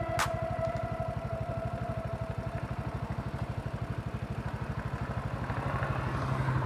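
BMW C400 GT maxi-scooter's 350 cc liquid-cooled single-cylinder engine idling with an even, rapid pulse while the scooter stands still.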